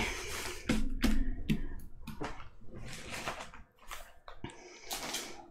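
Clear plastic protective film on a diamond painting canvas rustling and crinkling as hands brush and smooth across it, in a series of short, irregular swishes with a brief lull a little after the middle.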